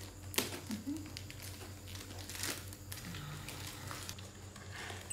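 Clear plastic bag crinkling as it is handled, in irregular rustles and crackles.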